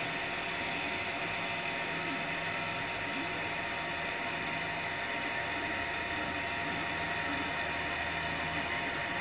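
FDM 3D printer printing: a steady whir from its fans, with the stepper motors humming underneath and changing pitch every second or two as the print head changes moves.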